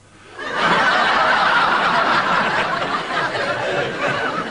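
Studio audience laughing at a punchline. The laughter swells up about half a second in, holds loud, and eases a little near the end.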